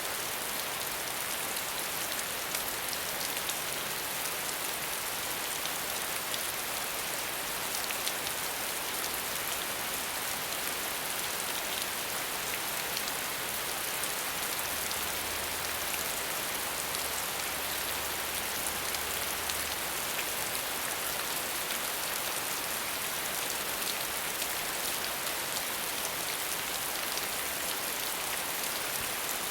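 Heavy rain falling steadily, a dense even hiss of drops with faint fine patter.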